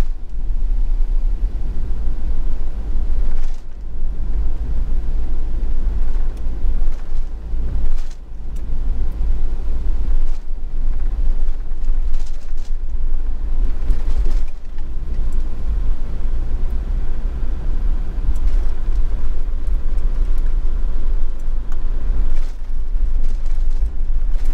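Camper van driving on a rain-wet road: a steady low rumble of road and engine noise, dipping briefly a few times.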